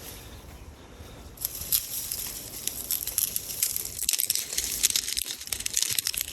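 Crunching and crackling of feet moving through dry grass or leaves: a dense, irregular run of crisp crackles that starts about a second and a half in and grows louder.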